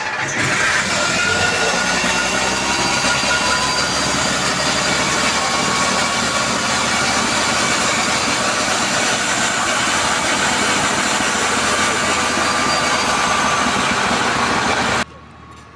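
150 kVA biogas generator's engine running steadily just after being started, its pitch rising slightly over the first few seconds as it comes up to speed. The sound stops abruptly about fifteen seconds in, giving way to quieter background.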